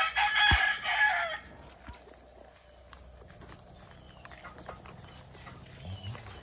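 A rooster crows once, a harsh call lasting about a second and a half at the start, followed by a quieter stretch with faint scattered chirps.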